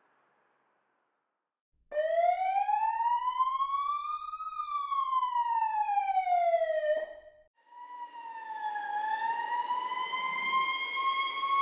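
Emergency-vehicle siren wailing. After about two seconds of silence it rises and falls once over about five seconds and cuts off. A second siren then starts, wailing slowly upward with a rushing noise beneath it.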